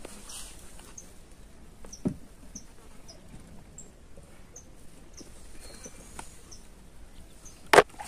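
Short, faint, very high chirps repeating about twice a second from a small calling animal. There is a sharp knock about two seconds in and a much louder sharp knock near the end.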